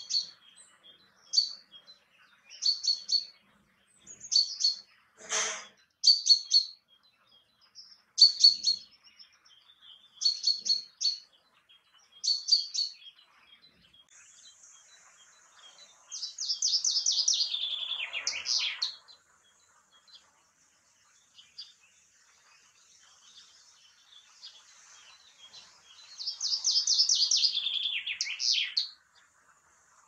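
Male common chaffinch: first a run of short, sharp calls about once a second, then two full songs, each a descending trill of about three seconds that ends in a flourish. One song comes about halfway through and the other near the end.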